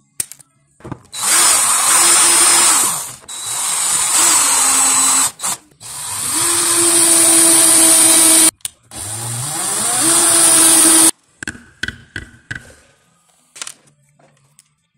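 Electric hand drill running in four bursts of about two seconds each, its motor whine rising as it spins up, while drilling holes in a small aluminium repair part. Faint clicks and taps follow after the drilling stops.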